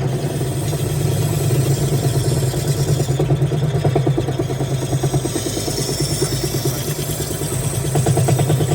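Wood lathe running: a steady motor hum with a fast, even rhythmic chatter over it.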